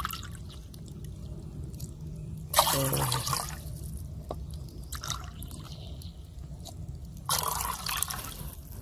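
Water poured from a cup into a stainless steel saucepan: two short pours, one about two and a half seconds in and one near the end, with light drips between.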